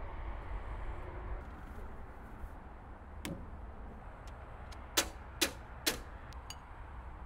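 Hand knocking on the sheet-metal engine bonnet of a Deutz F1L514 tractor: one knock about three seconds in, then three louder knocks about half a second apart, each with a short metallic ring, over a low steady hum.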